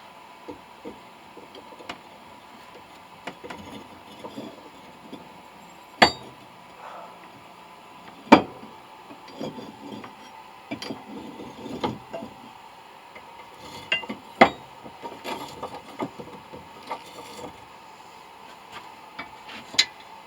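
Scattered knocks and clinks of metal tools and molds being handled, with two sharp, loud knocks about six and eight seconds in.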